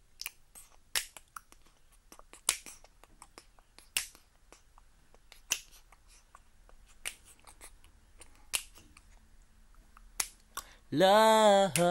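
Finger snaps keeping a slow beat, a sharp snap about every second and a half with fainter clicks in between. A sung note starts near the end.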